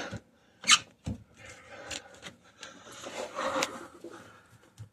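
Rubbing and scraping as a rubber Mission band coupling is worked over the drain pipe, with a sharp knock near the start.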